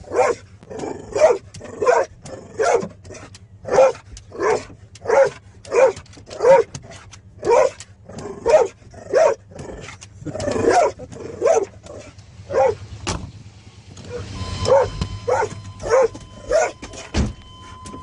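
A dog barking over and over, about one to two barks a second, with a short pause about two-thirds of the way through.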